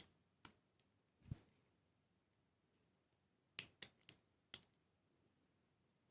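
Small clicks and taps of scale-model kit parts and tools being handled: a few scattered clicks, a soft knock a little over a second in, then a run of four quick clicks in the middle.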